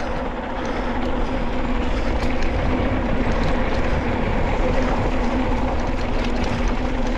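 Wind rushing over the camera microphone and tyres rolling on a dry dirt trail as a mountain bike speeds downhill, with a faint steady hum and light clicks and rattles.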